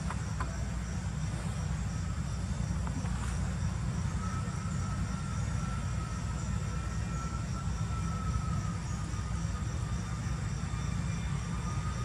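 Outdoor forest ambience: a steady low rumble under a faint, evenly pulsing insect trill, with a thin steady whine coming in about four seconds in and holding.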